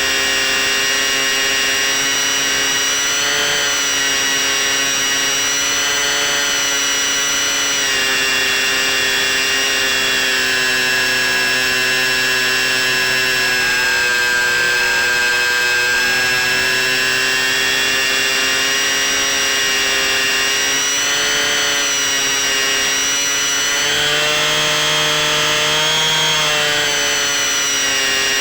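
C1 Chaser RC model plane's electric motor and propeller running in flight with a steady whine. The pitch drifts with the throttle, dipping a little around the middle and rising again near the end.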